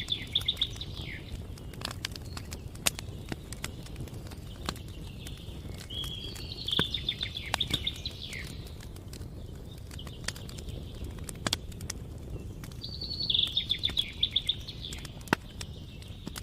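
Campfire crackling with scattered sharp pops over a steady low rush, while a songbird repeats a short trilled phrase three times, about every six seconds.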